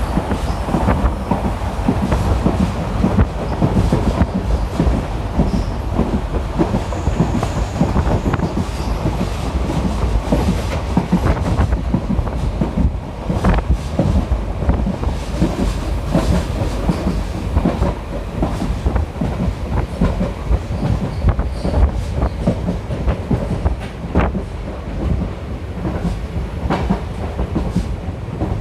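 Moving passenger train heard from on board a coach: a steady low rumble with the wheels clacking over the rail joints.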